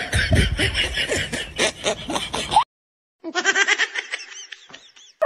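Laughter: quick breathy snickering pulses that cut off abruptly about two and a half seconds in, then after a brief silence a run of pitched ha-ha laughs that fade out near the end.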